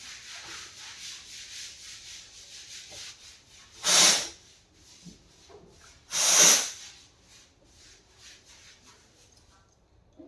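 Quick, repeated scratchy rubbing for about four seconds, then two loud swishing strokes about two seconds apart, followed by faint scraping.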